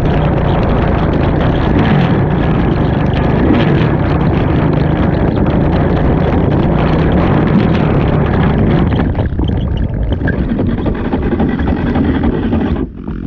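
Racing ATV engine running hard, its pitch wavering up and down with throttle changes, with a brief sharp drop in sound just before the end.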